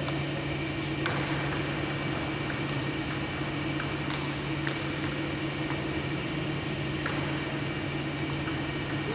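Steady mechanical hum of fans, with a few faint sharp clicks of a table tennis ball striking bats and the table.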